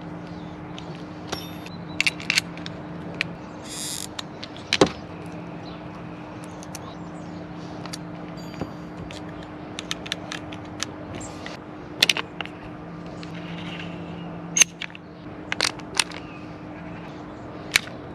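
Scattered sharp clicks and knocks of metal and plastic parts being handled and fitted onto an airsoft rifle, over a steady low hum. About four seconds in there is a short raspy hiss.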